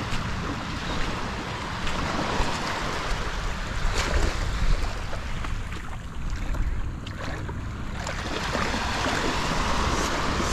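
Gentle surf washing up and back over a shallow sandy shoreline: a steady hiss of breaking and receding water, with some wind on the microphone.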